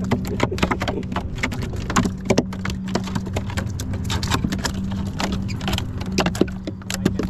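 Fish being unhooked and dropped into a plastic cooler on a boat: irregular knocks and clicks throughout, over a steady low hum.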